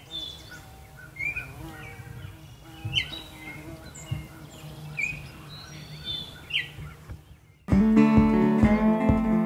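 Birds chirping, short calls every second or two, over a low steady rumble. Near the end, acoustic guitar music starts abruptly and much louder.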